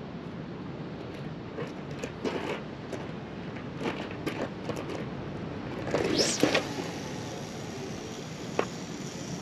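Steady wind and sea noise on an open pier. Scattered light clicks and knocks come a second or two in, a louder brief noisy burst about six seconds in, and a single sharp click near the end.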